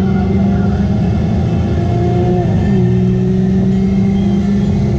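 Radiator Springs Racers ride vehicle travelling along its track, with wind rumbling on the microphone and steady held tones that shift pitch a couple of times.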